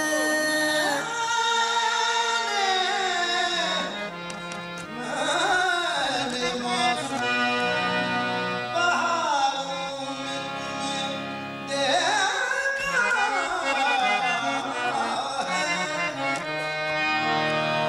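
Qawwali music: harmonium and tabla accompaniment, with long wordless vocal runs that glide up and down between the sung lines.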